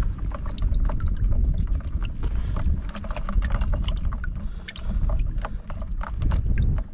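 Water sloshing and splashing in a plastic bucket of live prawns, with many quick sharp clicks over a heavy low rumble.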